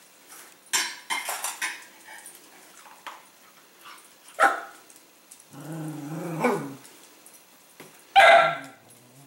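Cavalier King Charles Spaniel barking and growling at his stainless steel food bowls, a short bark about halfway, a longer low growling call after it and a loud bark near the end, the dog's fussing at dinner time to have his food poured out. A clatter of the metal bowls sounds about a second in.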